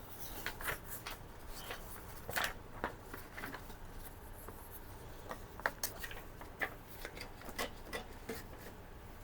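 Irregular light clicks and short rubbing scrapes of small hard parts being handled, the sharpest click about halfway through.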